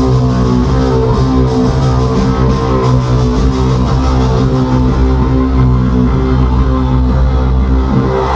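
Loud live electronic bass music from a concert sound system. Deep, sustained sub-bass notes sit under layered pitched tones and a steady beat.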